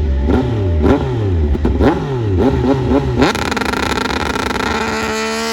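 Racing motorcycles changing down through the gears, the engine note falling and jumping back up again and again. A little over three seconds in it switches abruptly to one steady, high engine note held at constant revs.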